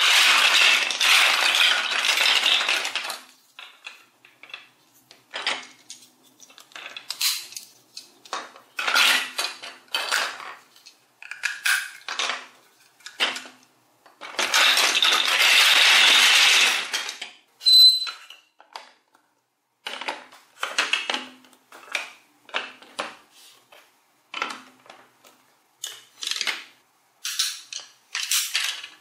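Large plastic toy building blocks clattering as a heap is stirred and sorted by hand, in two long rattling spells, at the start and about halfway through. Between and after them come separate clicks and knocks of plastic pieces being picked up, set down and snapped together.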